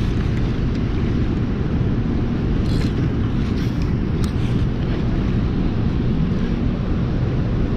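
Steady roar of turbulent water pouring out below a dam's open spillway gates, with a few faint clicks about three to four seconds in.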